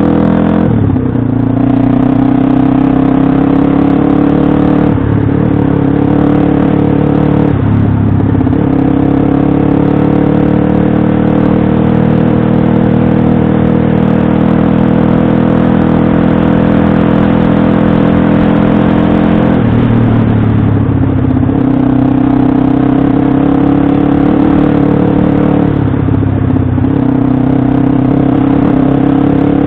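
Pit bike engine running hard while being ridden. The engine note holds steady for long stretches and dips and recovers several times: about a second in, around 5 and 8 seconds, and again near 20 and 26 seconds.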